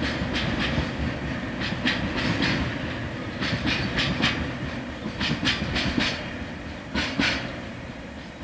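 Wheels of a departing freight train clattering over rail joints in quick pairs of clicks over a low rumble, steadily growing fainter.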